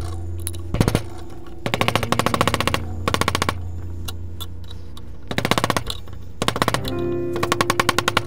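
Screwdriver tip chattering and scraping against the steel and old wood inside a Kelly Perfect axe head's eye as the handle remains are picked out, in about six short bursts of rapid clicking. Background music plays underneath.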